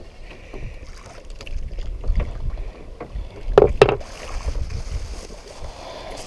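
Wind buffeting the microphone over water moving against the hull of a small outrigger fishing boat, with two sharp knocks close together a little past halfway through.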